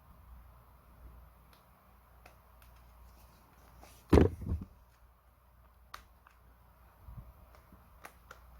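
Quiet handling noises: a sharp double knock about four seconds in, followed by a few light clicks.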